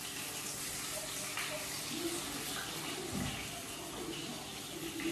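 Steady hissing sizzle from pots cooking on a gas stove, with a few faint light clinks.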